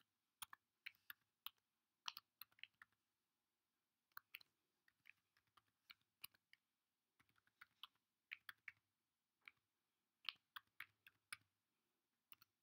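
Faint clicking of computer keyboard keys as a command is typed, in short irregular runs of keystrokes with brief pauses between them.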